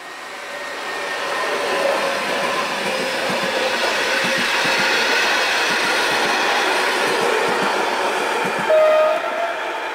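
A train's passenger coaches running past behind an electric locomotive, the steady rush of wheels on rail building up and then holding, with wheels clicking over rail joints. About nine seconds in there is a brief, loud, clear tone.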